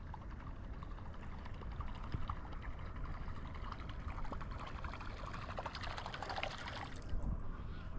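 Water splashing and trickling, with a fine fizzing crackle, over a steady low rumble. The crackle thins out near the end.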